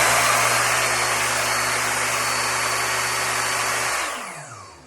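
Skil table saw's motor running free at full speed with no wood being cut, very loud. About four seconds in it is switched off and spins down, its whine falling in pitch as it fades.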